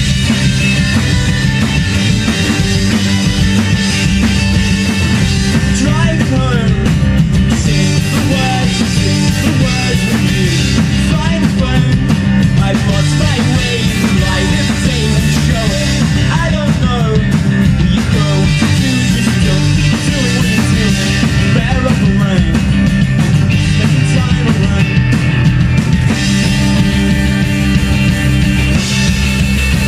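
Live punk rock band playing loud: acoustic and electric guitars, bass guitar and drum kit, with a singer at the microphone.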